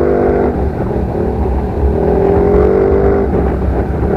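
Yamaha NMAX 155 scooter's single-cylinder engine running through an Akrapovic full exhaust system, a steady drone that eases off about half a second in and comes back for about a second from around two seconds in, over a constant low rumble.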